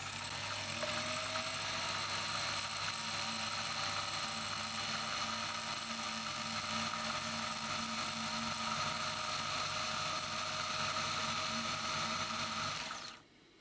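Electric motor of a 1957 Necchi Supernova Automatica sewing machine running steadily, driving its bobbin winder with the needle bar disengaged, as a bobbin fills with thread. It picks up speed a little in the first second or two and stops abruptly near the end.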